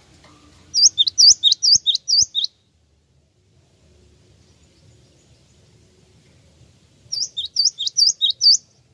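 Cinereous tit (gelatik wingko) singing: two quick bursts of repeated two-note whistled phrases, each phrase a high note sliding down followed by a lower one. The first burst comes about a second in, the second near the end, each lasting about a second and a half.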